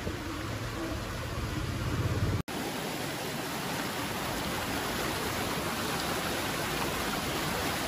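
A steady low hum for about two and a half seconds, broken by an abrupt cut, then the even rush of fast-flowing river water.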